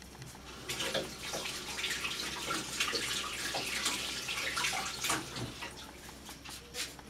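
Water running from a kitchen tap for about five seconds, starting just under a second in, with a few light knocks over it.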